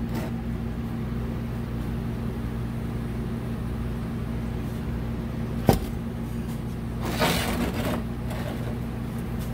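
Steady low mechanical hum from shop equipment. Partway through, a new aluminium heater core is handled on the workbench: one sharp knock about halfway, then a short rustle a second or so later.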